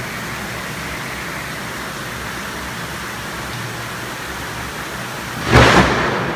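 Heavy tropical rain hissing steadily, then a sudden loud thunderclap about five and a half seconds in that rumbles away: lightning striking close by.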